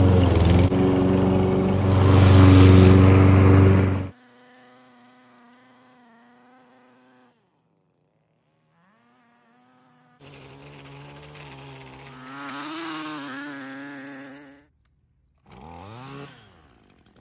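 A 22-inch Toro walk-behind mower's engine running for about four seconds, then cutting off abruptly. After that, a string trimmer's small engine runs in fainter, wavering stretches. It rises in pitch a little after the middle, then stops and runs briefly again near the end.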